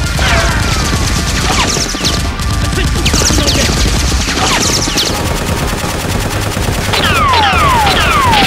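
Rapid gunfire sound effects dubbed over a Nerf blaster fight. Repeated falling whizzes sweep down in pitch over the rattle of fire, with a burst of several near the end.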